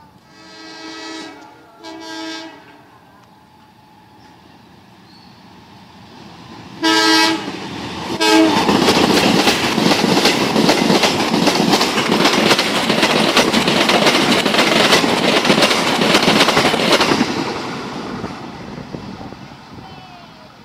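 Train horn sounding two short blasts, then a louder blast about seven seconds in as a locomotive-hauled passenger train reaches the spot and passes close by. The coaches' wheels clatter loudly over the rails for about nine seconds, then the noise fades as the train goes away.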